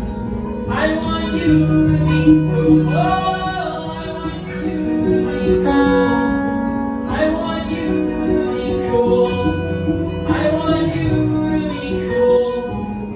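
Guitar played live through a venue PA, chords struck every second or two and left to ring, in the instrumental close of a song.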